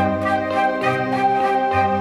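Background music: sustained keyboard chords over soft bass notes that change about once a second.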